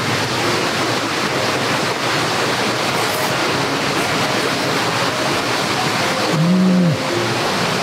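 Steady rushing noise, over which a man gives one short hummed "mm" of enjoyment, rising then falling in pitch, about six and a half seconds in, as he chews a mouthful.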